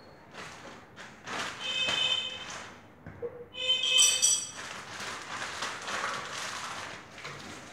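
Metal TV stand legs scraping against metal as they are handled and fitted to a flat-screen TV: two short high-pitched metallic squeals, about two and four seconds in, with rough scraping noise between and after.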